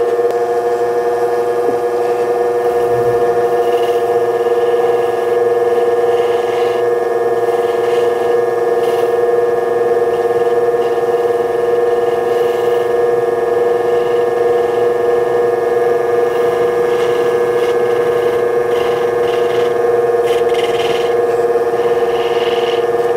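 Electric lapidary polishing motor running with a steady hum, as a black opal on a dop stick is pressed against its felt polishing wheel, giving short rubbing sounds on and off.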